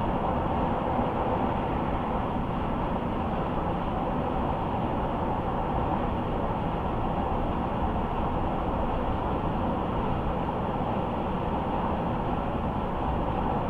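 Steady road noise of a car driving at speed: an even rush of tyre and wind noise that holds constant throughout.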